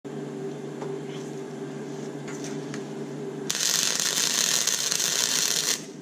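MIG welder humming, then about three and a half seconds in the arc strikes and sizzles steadily for about two seconds before cutting off abruptly.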